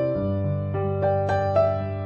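Gentle background music: a soft electric piano playing a slow melody over held bass notes.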